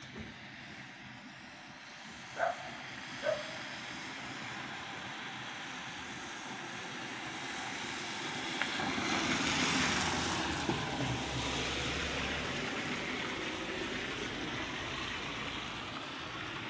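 Outdoor street noise in which a passing vehicle swells to a peak about ten seconds in and slowly fades. Two short high chirps come about two and three seconds in.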